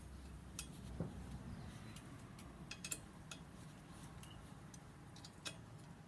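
Faint, irregular metallic clicks and ticks from a hand tool working the stem bolts tight on a BMX bike's front end.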